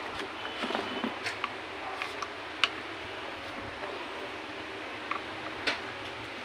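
Scattered light clicks and taps of parts and a screwdriver being handled as a pressure washer's pump head is fitted back onto its motor, the sharpest click a little over two and a half seconds in.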